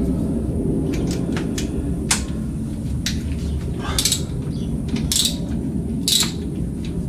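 Hand tools clicking and clanking against metal engine parts: about eight sharp, irregularly spaced clicks over a steady low rumble.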